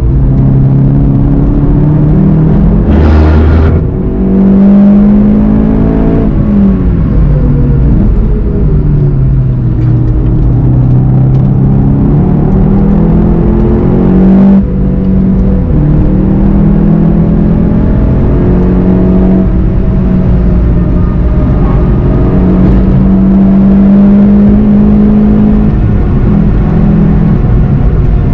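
Volkswagen Golf 7 GTI TCR's turbocharged four-cylinder engine under hard acceleration. Its revs climb and drop repeatedly with gear changes and lifts for corners, with a sharp break about three seconds in and another around halfway.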